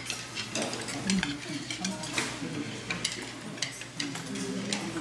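Metal chopsticks and spoons clinking irregularly against stainless steel bowls and plates as a roomful of people eat, with a faint murmur of voices.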